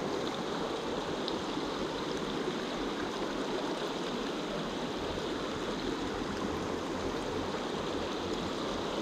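Shallow, rocky trout stream rushing steadily over stones in a riffle, heard close to the water. A low rumble joins about halfway through.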